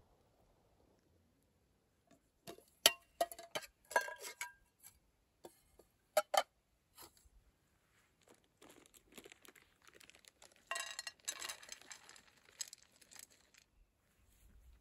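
Small objects being handled close up: a run of sharp clicks and clinks starting about two seconds in, then several seconds of crinkling and rustling.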